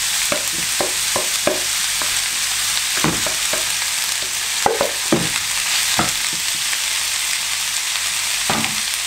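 Raw minced beef and diced red pepper sizzling loudly in a hot cast-iron skillet as they hit the pan, with scattered short knocks and scrapes as the last of the meat is pushed out of the bowl with a spatula.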